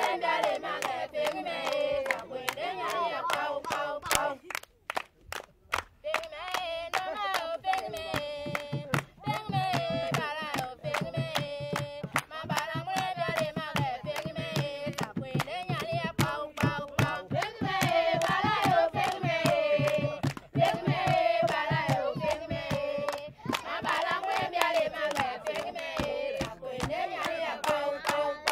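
A group of high voices singing together, with hand clapping keeping a steady beat; the song breaks off briefly about five seconds in and then carries on.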